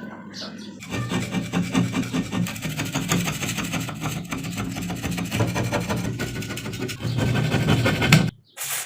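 Rusty metal pliers being abraded: a steady rasping scrape over a low hum, rising in loudness about seven seconds in, then cutting off suddenly.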